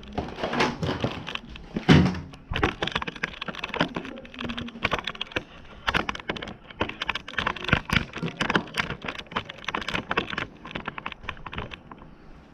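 Handling and wiping out the inside of a fridge: a fast, uneven run of clicks, knocks and clatters of hard plastic parts, with one louder knock about two seconds in.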